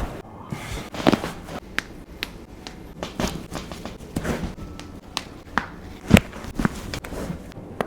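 Scattered sharp clicks and taps from hands-on chiropractic work on a patient, about ten in all, with the loudest about six seconds in.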